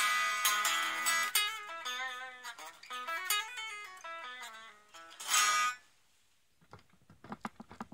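Electric guitar played through a tweed-style overdrive pedal: a ringing chord, then a run of single notes with bends, a strummed chord about five seconds in, and a few muted string clicks near the end after a brief pause.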